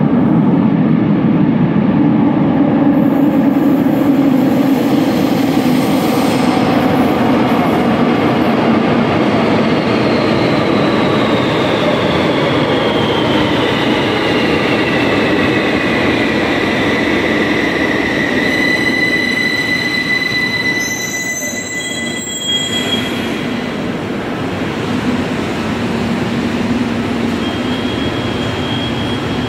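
An underground metro train running alongside the platform. Its whine falls steadily in pitch as the train slows, followed by steady high-pitched tones from the wheels and running gear.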